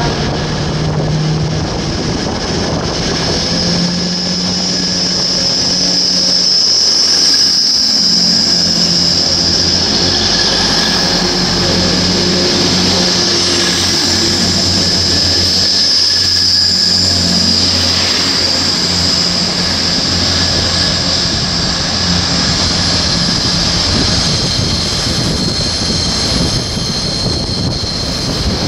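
Diesel passenger train passing through a station at speed, with a low engine note under a high, steady ringing from the wheels on the rails.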